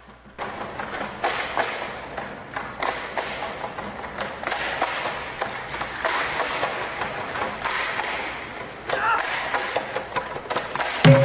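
Bamboo poles of a singkil dance knocking and clattering in irregular sharp clacks and thuds, with dancers' steps among them.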